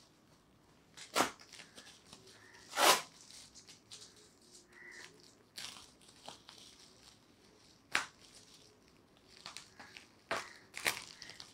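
Shipping package being unfolded and torn open by hand: rustling and crinkling with several short, sharp tearing sounds, the loudest about three seconds in.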